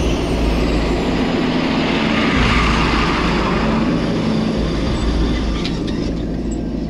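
John Deere 4755 tractor's six-cylinder diesel running under load as it pulls a sprayer through soybeans and passes close by, loudest about two and a half seconds in, then easing off near the end.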